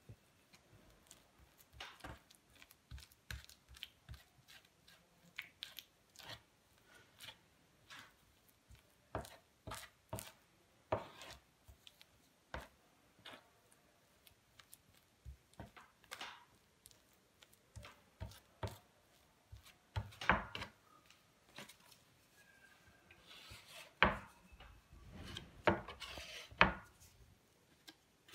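A spatula scraping, pressing and tapping through wet clay on a board, in irregular soft strokes. The knocks and rubbing get louder and busier in the last several seconds as the clay is handled and packed into a plastic cartridge.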